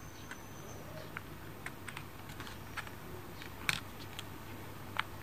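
Scattered small clicks and taps of a DDR3 laptop RAM module being handled and slid into its memory slot, the loudest about three and a half seconds in.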